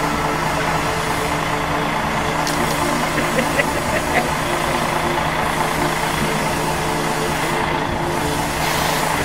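Touring coach's diesel engine idling steadily, an even low hum, with a few light clicks about three to four seconds in.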